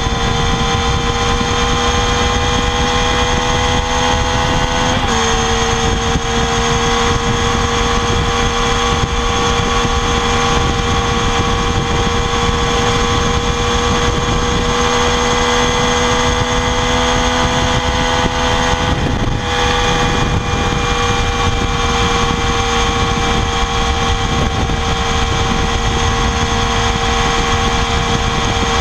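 Triumph Daytona 675R's inline three-cylinder engine on its stock exhaust, held at high revs with a steady note. The pitch creeps slowly upward, steps down slightly about five seconds in and dips briefly around nineteen seconds.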